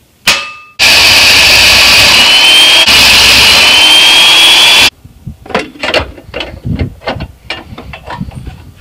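A brief metallic ring, then an electric drill press running with its twist bit cutting through a 16-gauge steel plate for about four seconds, a thin rising squeal from the bit in the metal; it stops abruptly, and light knocks and taps from the steel plate being handled follow.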